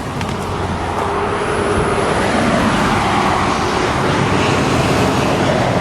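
Steady rushing roar of an aircraft passing overhead, swelling over the first couple of seconds and then holding.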